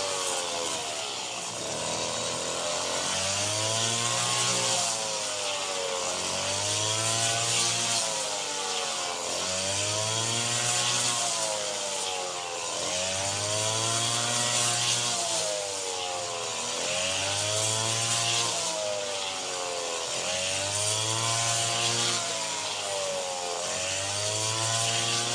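Engine of a rice-harvesting machine running under load, its pitch rising and falling in a regular cycle about every three and a half seconds, with a steady hiss over it.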